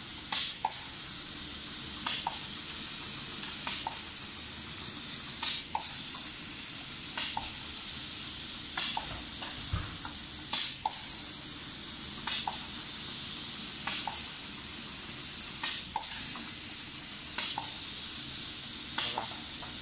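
Automatic spray painting machine's air spray gun hissing steadily as it sprays paint onto cabinet door panels, with brief click-like breaks about every one and a half to two seconds.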